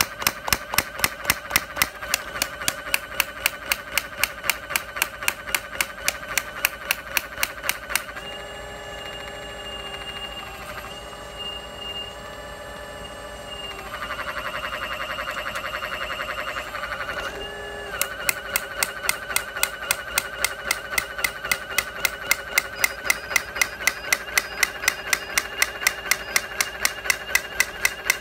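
Small hydraulic breaker hammering its chisel into a brick at a steady rate of about three blows a second. The blows stop for about ten seconds in the middle, leaving only a steady pitched whine, then resume.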